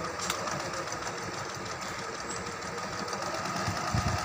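Juki Liza 20Z electric sewing machine running steadily, sewing a straight stitch under foot-pedal control, with one sharp click shortly after the start.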